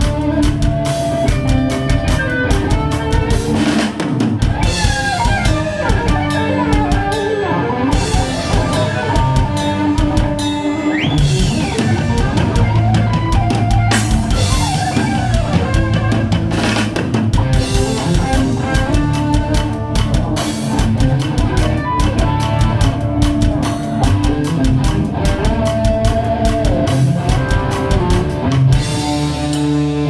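A technical death metal band playing live: distorted electric guitars over a fast drum kit with driving bass drum. A short high note bends up and back down about eleven seconds in.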